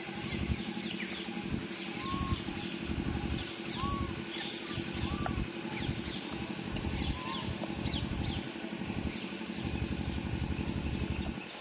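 A steady low engine hum runs throughout, with many short high chirps and a few brief rising-and-falling squeaks on top.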